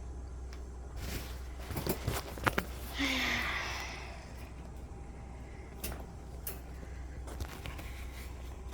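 A few light clicks and knocks and a brief rustle, like something being handled, over a steady low hum.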